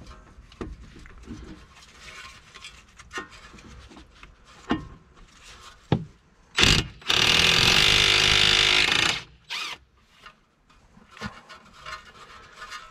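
Cordless impact wrench running for about two seconds, with a short burst just before and another just after, undoing the CV axle bolt at the front hub of a VW Passat B6. Light clicks and scrapes of tool handling come before it.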